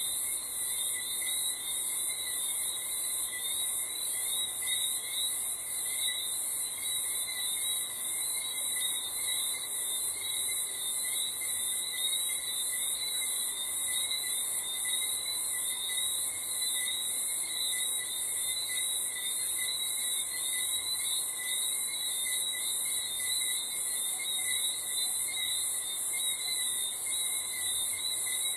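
Night chorus of crickets: a steady, high-pitched pulsing trill, with lower steady trills from other callers beneath it and no thunder.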